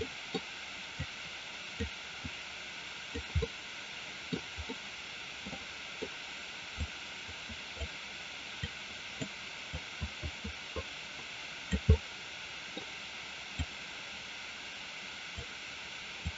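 Irregular soft clicks and taps, about two a second, from a computer mouse being worked, over a steady hiss of microphone noise.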